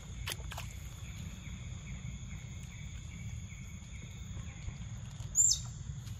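Steady high-pitched drone of forest insects over a low rumble, with a couple of faint clicks near the start. About five and a half seconds in comes one short, sharp, high call that falls in pitch, the loudest sound.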